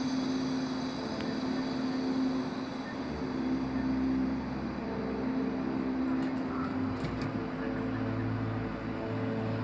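Taiwan Railway Chu-Kuang express train pulling out: a steady humming drone with a low rumble as the coaches move away, its higher tones fading after about four seconds, with a few light clicks near the end.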